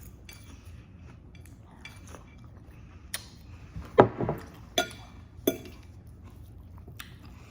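Cutlery clinking against dishware during a meal: about five separate clinks with a short ring, the loudest about four seconds in.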